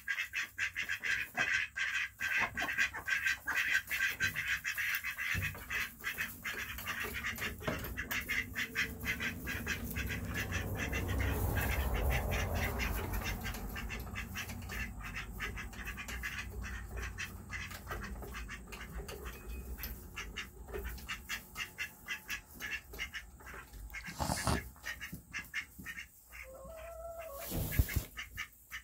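A group of ducks quacking in rapid, overlapping calls, thinning out toward the end, with two sharp knocks near the end.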